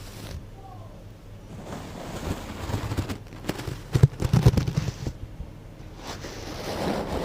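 Close-miked ASMR trigger sounds: an object brushed and tapped against the microphone, giving scratchy rustling with sharp clicks and a few heavy thumps. It comes in two bouts, the first about two seconds in and the second near the end.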